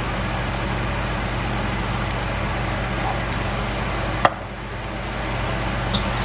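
Steady hiss with a low hum from a hot wok of shrimp and rice on the stovetop. A single sharp click about four seconds in, after which the hiss briefly drops and builds back.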